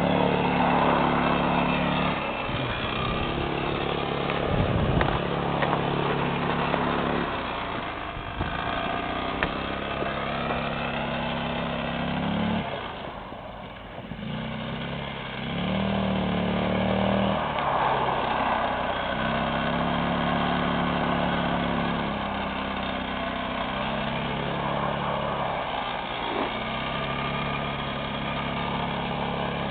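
Small ATV engine revving hard and easing off over and over while doing burnouts on ice, its pitch rising and falling, with a brief drop in revs about halfway through.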